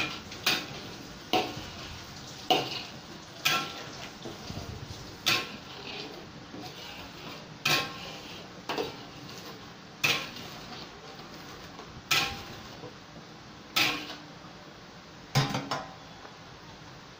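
A spatula scraping and knocking against a wok while thick chili sambal is stirred, about a dozen sharp clinks spaced a second or two apart. Underneath, a steady low sizzle of the sambal bubbling as it comes to a simmer.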